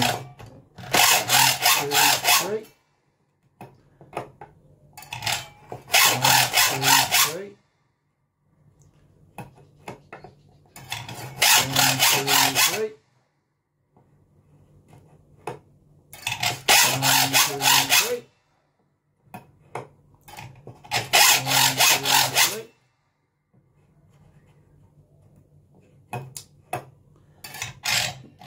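Hacksaw cutting new teeth into a saw plate, in five short bursts of rapid back-and-forth strokes, one tooth per burst. Between the cuts come a few light clicks as the guide jig is shifted along to the next tooth.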